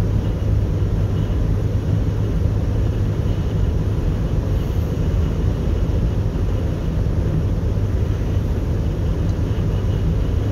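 Steady low drone of car road and engine noise heard from inside the cabin while driving.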